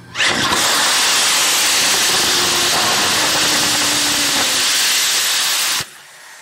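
Paraffin-wax and gaseous-oxygen hybrid rocket engine firing on a static test stand: a loud, steady rushing hiss that starts suddenly, burns for about five and a half seconds and cuts off abruptly. A much fainter hiss follows near the end.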